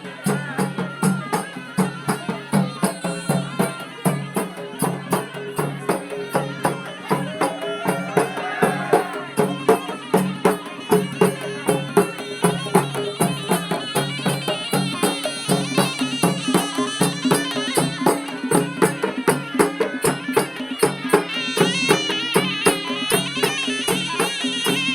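Traditional devotional music: a reedy wind instrument plays a wavering melody over rapid, evenly repeated percussion strikes.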